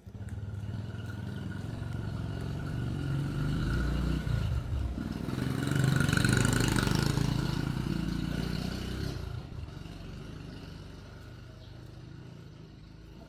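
A motor vehicle, likely a motorbike, passing by: its engine grows louder to a peak about six seconds in, then fades away.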